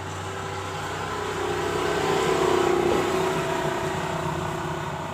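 A vehicle passing by, its steady rumble swelling to a peak midway and then fading.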